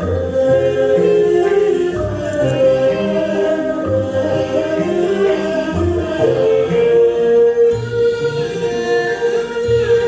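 Mixed choir and costumed Huangmei opera singers singing a Huangmei opera melody together in held, flowing notes.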